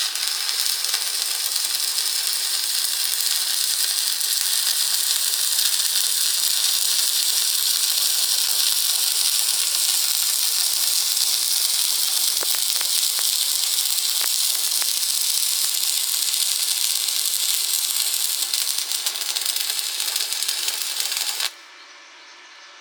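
Electric arc welding: the steady hiss and crackle of the arc running one continuous bead. It strikes at once and breaks off suddenly near the end.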